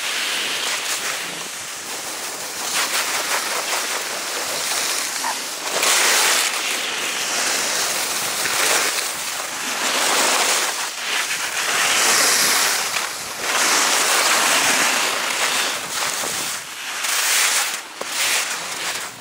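Skis scraping over hard, icy piste snow in repeated swelling surges, with wind rushing over the action camera's microphone.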